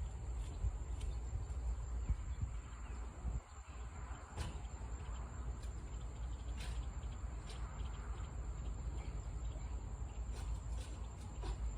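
Steady background ambience: a low rumble with a thin, steady high-pitched tone over it and a few scattered faint clicks.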